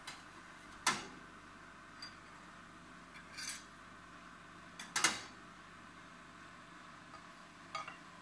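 Metal-on-metal clanks of a stainless-steel grill rack and its handle against the body of an electric high-temperature steak grill: two sharp clacks about four seconds apart, with a few lighter clicks between and near the end.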